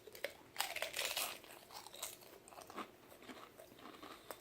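Pringles potato crisps being bitten and chewed: a loud crisp crunch about half a second in, followed by softer, scattered chewing crackles.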